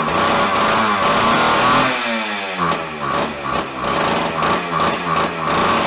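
Homelite Super XL Automatic two-stroke chainsaw engine running fast, then dropping in speed about two seconds in and running unevenly with a pulsing beat about three times a second. This is a freshly revived scrapyard saw that has only just fired, and its carburettor still needs adjusting to keep it running.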